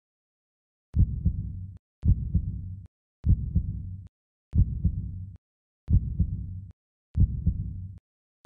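Heartbeat sound effect: six low double thumps about every 1.2 s, each opening with a sharp click and cutting off abruptly into dead silence.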